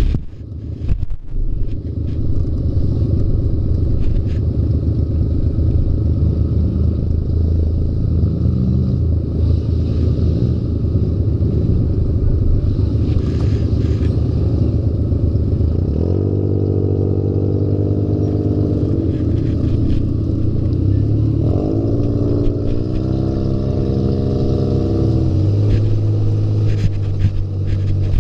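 Off-road buggy engine running under way, with clatter and rattling from the ride. Twice in the second half, the engine's pitch climbs and then drops back as it is revved and eased off.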